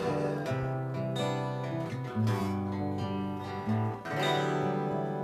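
Acoustic guitar strumming the closing chords of a song, with no singing; the last chord, struck a little after four seconds in, is left ringing and slowly fades.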